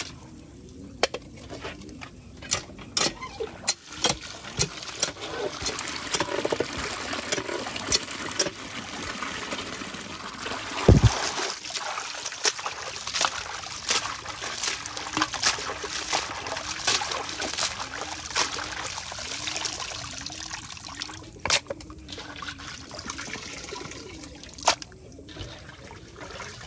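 Water trickling and splashing, with many sharp clicks and knocks throughout and one louder knock about eleven seconds in.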